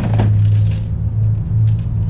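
Steady low mechanical hum, like an engine idling, holding one pitch throughout.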